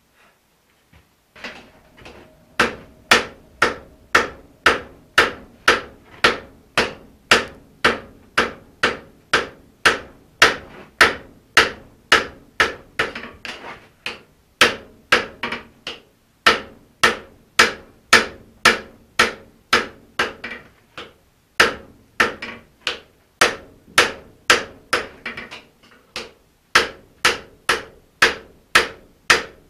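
Hammer blows on a red-hot steel axe head on the anvil, forging it to final shape: a steady run of sharp strikes about two a second, each followed by a short ring from the anvil, with two brief pauses midway.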